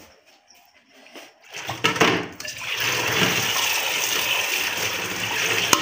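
Water running from a tap and splashing steadily onto a plate, spoon and bowl in a kitchen sink, starting a little under two seconds in with a brief clatter of dishes.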